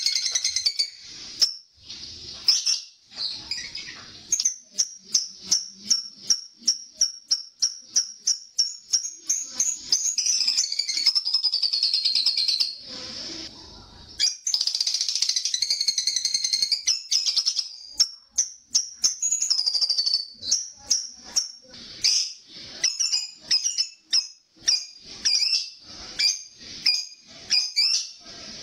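Lovebird 'ngekek': long, shrill, rapid chattering trills lasting a few seconds each, between runs of sharp repeated chirps several a second. This is the sustained chatter that lovebird keepers prize and play to their birds to draw it out.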